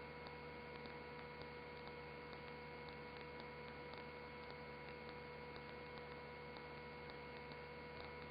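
Faint electrical hum and hiss on the helicopter's radio/intercom audio feed between transmissions: several steady pitches, with faint ticks about twice a second.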